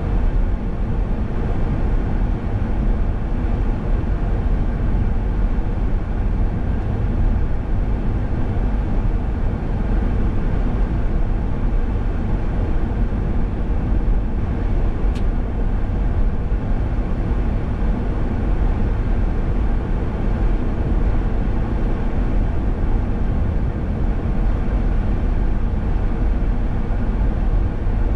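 Car driving steadily at road speed: a continuous low rumble of tyres, engine and wind, with one brief faint click about halfway through.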